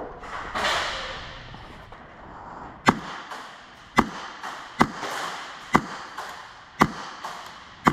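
Airsoft guns firing single shots: sharp cracks roughly once a second, starting about three seconds in, over a hiss that fades during the first two seconds.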